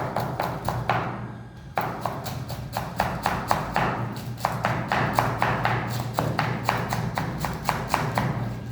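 Rapid, regular tapping or knocking, about four to five sharp knocks a second, over a steady low hum.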